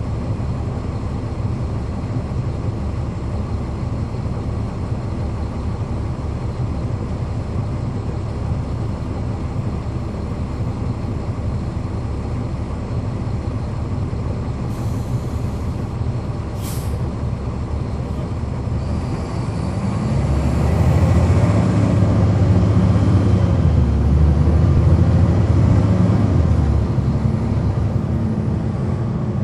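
Caterpillar C13 inline-six diesel of a NABI 40-SFW transit bus, heard from the rear seat, rumbling steadily at low speed. About halfway through comes a brief hiss of air. From about two-thirds of the way in, the engine pulls harder and grows louder, with a faint rising whistle, then eases off near the end.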